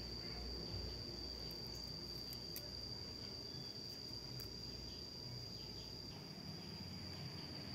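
An insect calling in one steady, unbroken high-pitched tone, over a faint outdoor background hiss. A few faint clicks come about two and a half seconds in.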